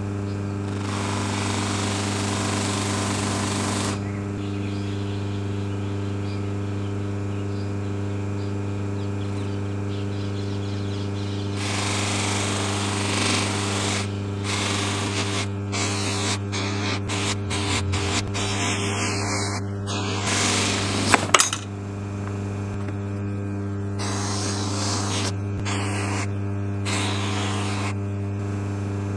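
Electric motor spinning a stitched cotton buffing wheel with a steady hum. In several spells of a few seconds each, a brass lock knob is pressed against the buff and adds a hiss of polishing. A couple of sharp clicks come about two-thirds of the way through.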